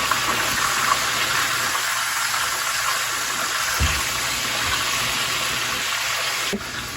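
Water running steadily from a kitchen sink tap, shut off abruptly near the end.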